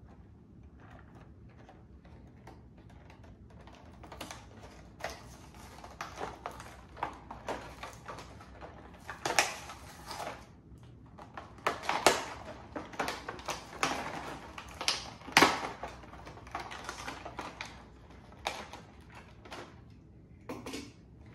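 A cardboard box of toy cars being pried and torn open by hand: irregular crackling, scraping and tearing, with a few sharper rips in the middle.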